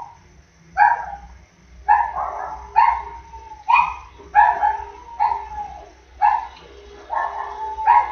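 Neighbouring dogs barking repeatedly, about one bark a second.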